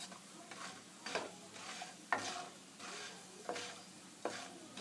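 Wooden spatula stirring and scraping badi (sun-dried lentil dumplings) frying in a little oil in a nonstick kadai, with a faint sizzle. A short scrape or knock comes every half second to a second as the dumplings are roasted until they brown.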